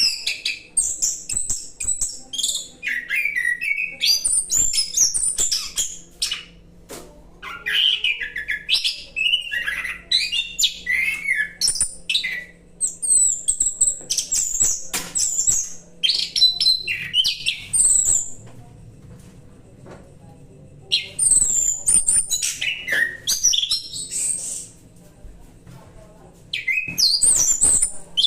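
Orange-headed thrush singing a varied, rolling song of quick gliding whistles and chirps, in long phrases broken by short pauses of a second or two.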